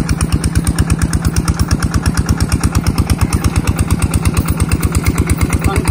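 Tubewell pump engine running steadily, with an even beat of about ten pulses a second.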